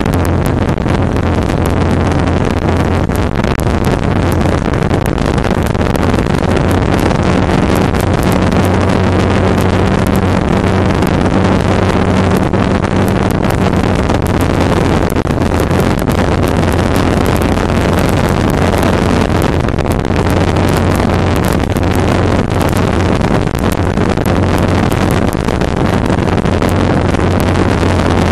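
Yamaha R15's single-cylinder four-stroke engine running steadily at highway cruising speed. Heavy wind rush on the microphone over it.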